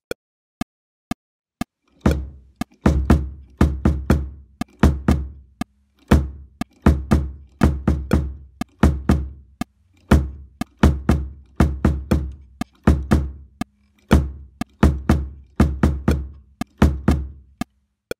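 Bass drum played with a foot pedal, repeating a clave-like sequence of strong kicks at 120 BPM. A click track beats steady time, counting in four clicks before the kicks start about two seconds in.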